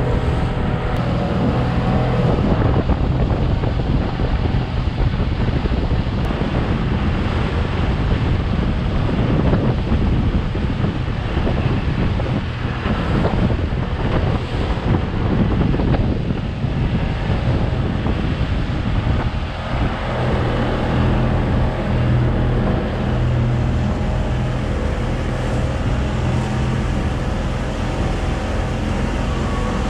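Motorboat underway: its engine hums steadily under wind buffeting the microphone and water rushing past the hull. The engine's hum stands out more clearly again in the last third.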